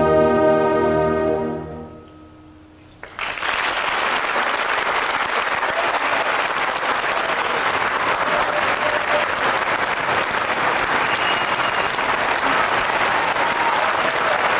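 The closing sustained chord of a combined orchestra and Javanese gamelan fades away, and about three seconds in a concert audience breaks into loud, steady applause.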